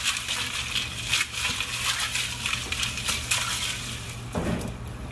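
Ice cubes clinking and water sloshing as a hand stirs deer backstrap in an ice-water salt brine in a bowl, with many quick irregular clinks.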